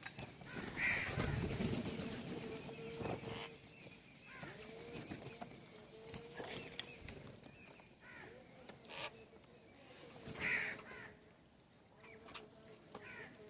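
Birds calling and chirping, with two louder calls: one about a second in and one near the end.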